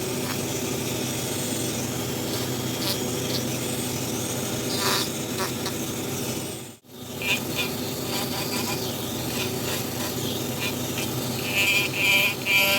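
Small electric power-carving tool running with a steady buzzing whine, cut off sharply for an instant just before halfway. Short higher squeals come near the end.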